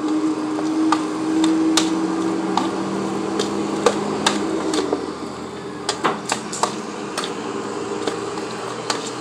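A spoon clicking and scraping irregularly against the rim of a bowl while seasoning chicken with sauce. Under it, a steady low hum that stops about five seconds in, which the cook puts down to cars outside.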